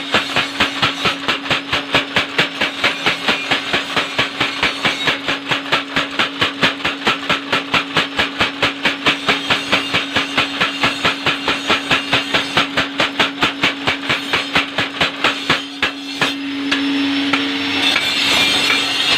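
Mechanical power hammer pounding red-hot steel held in tongs, at a steady rate of about four blows a second over a steady hum. The blows stop about sixteen seconds in, and a louder steady rushing noise follows.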